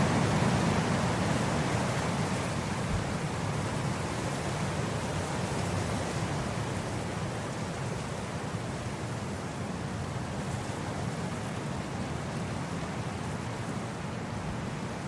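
Wind blowing across grass: a steady rushing noise, strongest at the start and easing off slightly.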